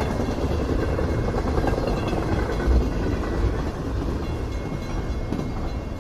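Train running on the track: a steady, continuous rumble.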